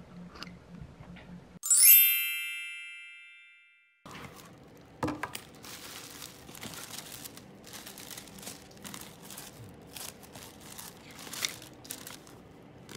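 A bright bell-like chime rings out once, about two seconds in, and fades away over a couple of seconds. After a brief silence, tissue paper and plastic wrapping crinkle and rustle as they are pulled open from a box.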